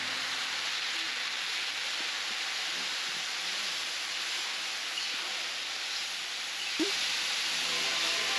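Rice and whole spices sizzling steadily in butter in a pot as the rice parches.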